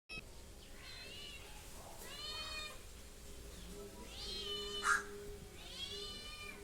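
Domestic cat meowing about four times, each call rising then falling in pitch, with a sharp click between the third and fourth calls.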